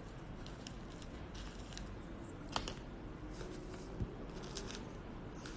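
Faint scattered light clicks and ticks of small hard objects being handled, with one sharper click about two and a half seconds in and a soft knock about four seconds in.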